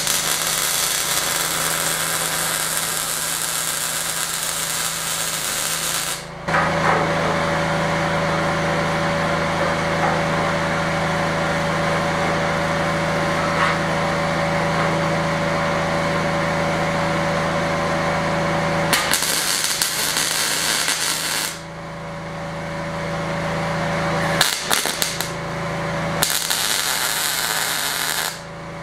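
MIG welder arc on steel, a steady hiss in long runs of welding: a brief stop about six seconds in, a longer pause about three-quarters of the way through, then a few short stop-start tacks and a final run.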